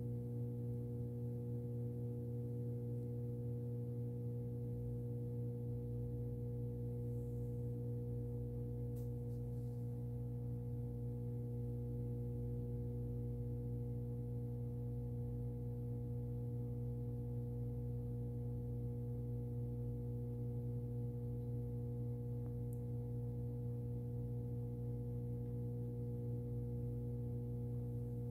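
A steady low hum with a few fainter higher overtones, unchanging in pitch and level.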